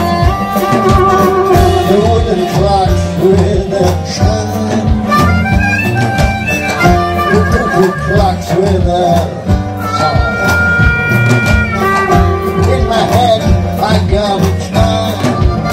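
Live blues band playing an instrumental break: harmonica taking the lead with held and bent notes, over guitar, double bass and drums keeping a steady beat.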